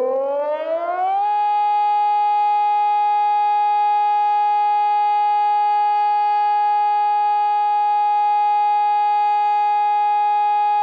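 Sonnenburg SES600 electronic compact siren sounding the fire-alarm signal. Its tone climbs in pitch over about the first second, then holds one steady, loud wail.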